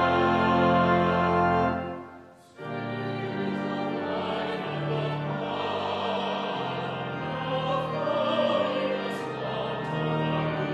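Hymn played by organ with trumpet and horn: a loud held chord closes about two seconds in, followed by a brief pause. A mixed vocal quartet then starts a new verse, singing over organ accompaniment.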